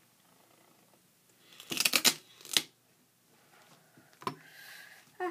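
Duct tape being handled and cut on a cutting mat: a few short crinkling scrapes, the loudest about two seconds in, another half a second later and a smaller one a little after four seconds.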